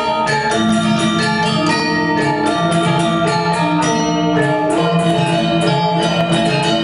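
Live Balinese gamelan playing: bronze metallophones ring out rapid struck notes over sustained low tones.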